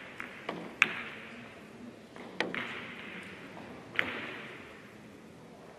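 Billiard shot: a cue stroke and then sharp clicks of the balls striking each other and the cushions, the loudest just under a second in and two more at about a second and a half apart, each with a short echo.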